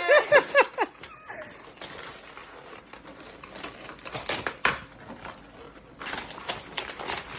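Wrapping paper being torn and crinkled off a gift: irregular crackles and sharp rips, with a denser stretch of tearing near the end.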